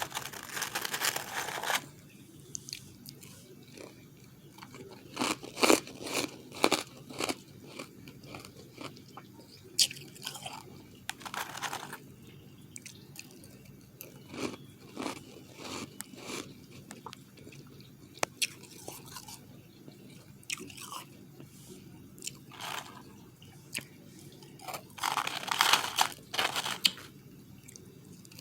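Close-miked biting and chewing of refrozen powdery ice, crisp crunches at irregular intervals, with louder bursts of crunching near the start and again near the end.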